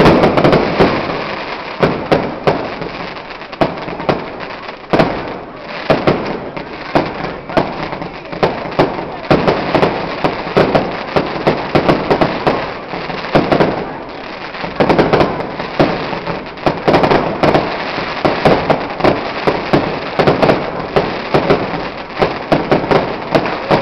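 Fireworks display: a rapid, continuous barrage of aerial shells bursting, many sharp bangs and crackles in quick succession with only brief lulls.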